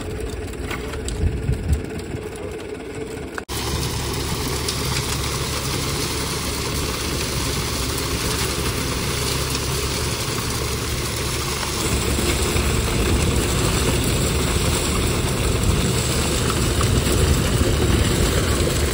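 Concrete mixer truck's engine running steadily while wet concrete pours down from above and splashes into the footing formwork. The sound breaks off sharply about three and a half seconds in, then carries on, a little louder again from about twelve seconds.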